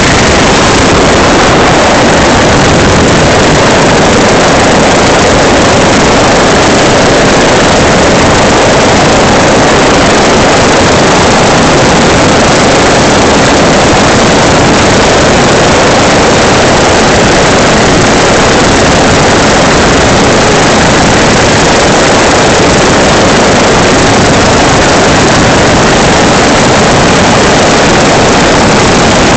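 Helicopter hovering: loud, steady rotor and engine noise heard through the open cabin door, with no let-up as the hoist lifts.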